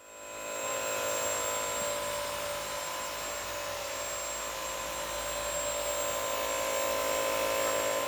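Bissell CrossWave wet-dry vacuum running while mopping a hardwood floor: a steady motor drone with a whine, swelling in over the first second and dropping away at the end.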